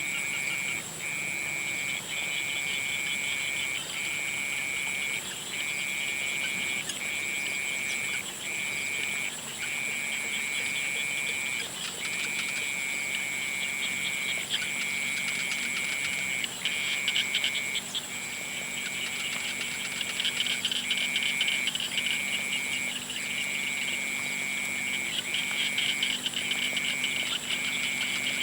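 Chorus of frogs calling: a continuous high trill that breaks briefly about every second, with crackly pulsing calls layered over it and a steady very high whine.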